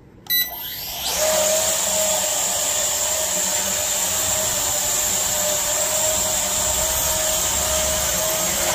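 A short beep, then the Garuda camera drone's motors and propellers spin up about a second in and run with a steady high whine and rushing noise. They stop right at the end.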